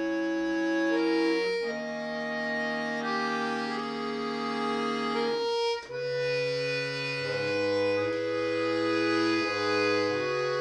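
Piano accordion playing a slow passage of held chords that change every second or so, with a brief break about six seconds in, after which lower bass notes enter.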